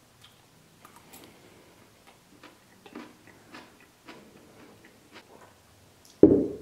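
Faint, irregular small clicks and ticks in a quiet room, then a sudden loud thump near the end that dies away quickly.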